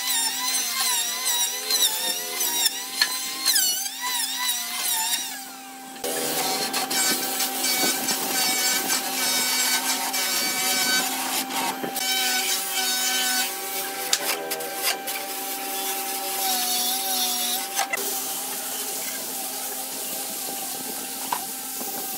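Power tools working a hardwood slab: an electric hand planer shaving the surface, then from about six seconds in a motor-driven rotary wheel on a long shaft scrubbing the wood, and from about eighteen seconds in an angle grinder sanding the top.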